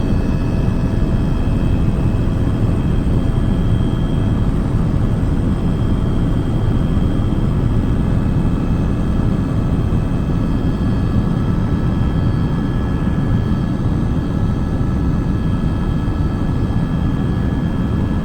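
Helicopter in flight: a loud, steady rumble with several steady whining tones over it.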